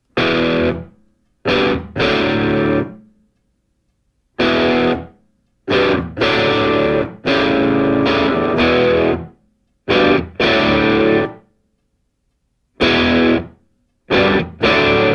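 Outro music: distorted electric guitar playing chords in short stop-start bursts with gaps of silence between them, running on more continuously near the end.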